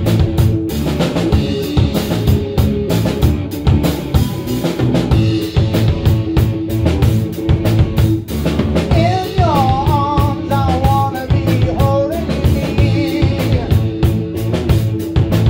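Live rock band playing: drum kit with steady hits, bass and electric guitar, with a held guitar note throughout. About nine seconds in a wavering melody line rises above the band for a few seconds.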